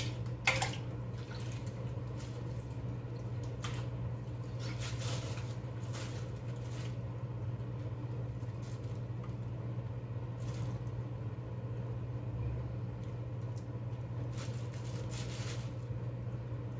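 Soft, wet squishing and scattered light clicks of raw beef intestine being worked along a thin stick as it is turned inside out, with a sharp click about half a second in. A steady low hum runs underneath.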